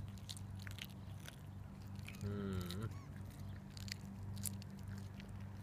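Eight-week-old Border Collie puppy chewing a fresh trout: irregular crunching and sharp clicks of its teeth working through the fish. A short pitched call sounds about two seconds in.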